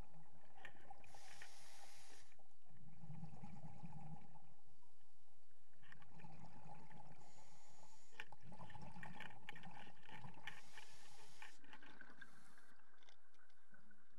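Scuba diver breathing through a regulator underwater: exhaled bubbles rush out in bursts about every four seconds, three times, under a steady hiss of water.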